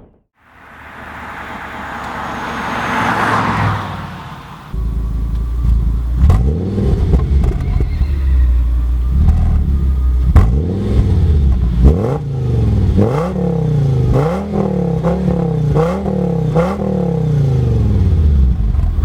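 Audi S6's 5.2-litre V10 engine being revved: after a rising rush of noise in the first few seconds, the engine comes in and is blipped again and again, its pitch sweeping up and dropping back, in quick repeated revs about once a second near the end.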